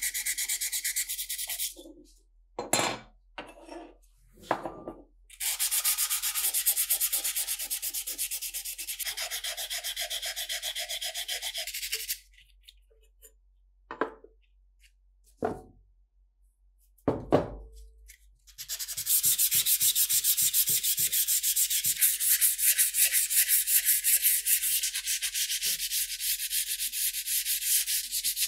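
Sandpaper rubbed by hand over steel SKS rifle parts in quick back-and-forth strokes. It comes in three spells, with a few knocks and clicks in the pauses between them, the loudest a dull thump a little past the middle.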